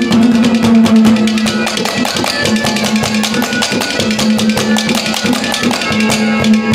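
Live instrumental interlude of a ragni accompaniment band: a harmonium holding a steady low note over a fast, dense drum beat.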